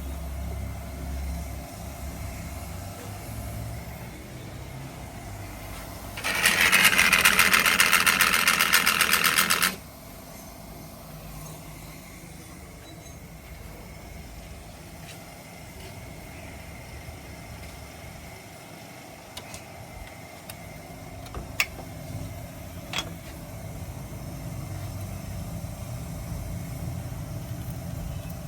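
A power tool runs in one loud, fast-rattling burst of about three seconds, some six seconds in, over a low steady hum. A couple of sharp clicks follow later on.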